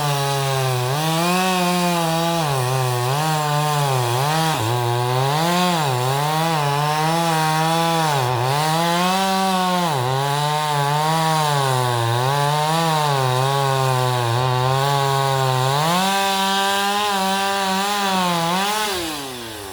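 Chainsaw cutting through a boxelder tree at full throttle. The engine's pitch sags again and again as the chain loads up in the wood, then picks back up. It holds high for a few seconds near the end, then drops as the throttle is let off.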